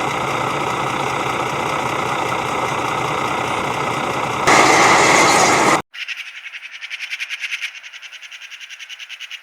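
A steady mechanical running noise, louder for about a second before it cuts off abruptly a little past the middle, followed by rapid, evenly repeating high chirps.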